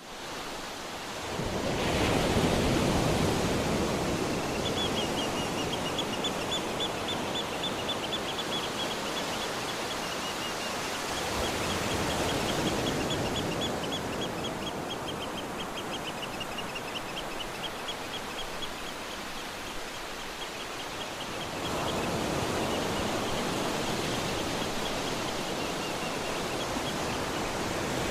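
Ocean surf breaking and washing up a beach: a steady rush that swells as a wave comes in, about two seconds in and again near the end. Over it, for most of the middle, a bird calls in a long run of rapid, evenly repeated high chirps.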